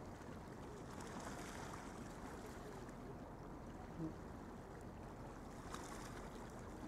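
Faint, steady outdoor background noise, a low even rumble with no clear single source, and a brief soft blip about four seconds in.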